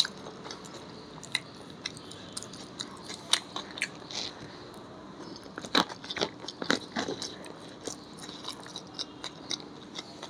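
A person chewing and biting food, with irregular small crunches and mouth clicks and a denser run of louder crunches about six seconds in.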